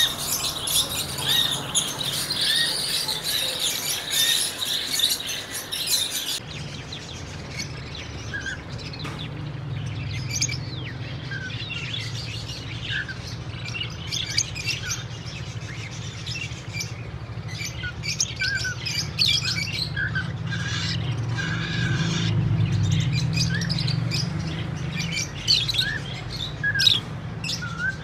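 Caged lovebirds chirping and chattering: a dense chatter of many birds for about the first six seconds, then it cuts off abruptly to scattered single chirps over a steady low hum.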